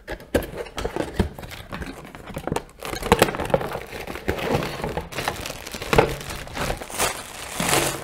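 Cardboard packaging and a plastic bag rustling and crinkling as a boxed hair dryer brush is unpacked, with irregular crackles and taps throughout; the plastic bag crinkles loudest near the end.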